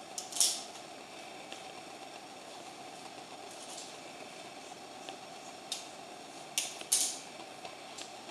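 A steady mid-pitched hum, with a few short rustling swishes; the loudest come about half a second in and around seven seconds in.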